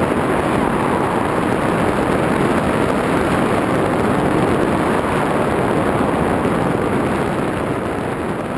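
Wind rushing over the camera's microphone during a tandem parachute descent under an open canopy: a loud, steady rush that eases slightly near the end.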